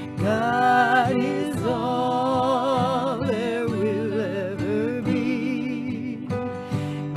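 Women singing a devotional song with acoustic guitar accompaniment, the voices holding long notes with a wavering vibrato.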